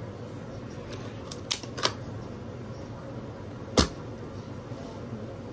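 Plastic clicks from a Minecraft Nerf hammer toy blaster being handled: a few light clicks between one and two seconds in, then one louder click near four seconds.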